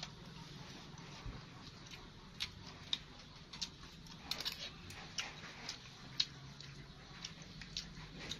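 A person eating: scattered soft clicks and smacks of chewing, at irregular intervals, with a few close together about four and a half seconds in.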